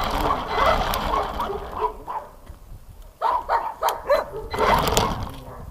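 A dog barking and yelping in short, high yips that rise and fall in pitch, in bursts, with a quieter gap about two seconds in.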